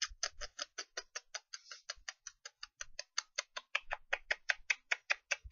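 Rapid, even clicking, about seven clicks a second.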